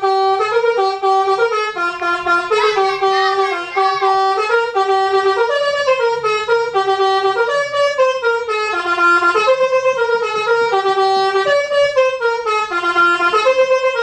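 Basuri telolet horn playing a tune, a continuous horn melody stepping up and down between a few notes in a repeating phrase.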